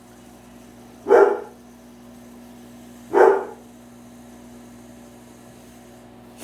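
A dog barks twice, single sharp barks about two seconds apart, alerting to someone arriving home. Under it a running microwave oven hums steadily.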